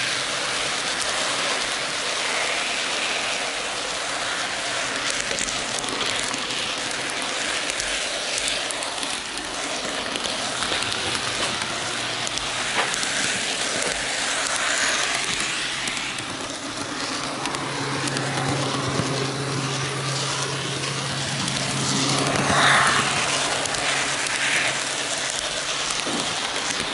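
Steady rolling rattle and hiss of an N gauge model train running on its track, picked up close by the camera riding on the car. A low steady hum joins in about two thirds of the way through.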